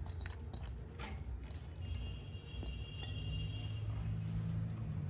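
Soaked lentils poured from a bowl into an aluminium pressure cooker: a few light clinks and taps as the lentils drop and the bowl touches the pot, in the first couple of seconds.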